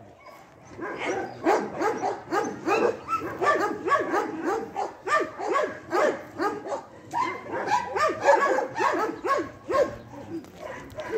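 Dogs barking and yipping, many short barks in quick succession and overlapping, starting about a second in and easing briefly near the end.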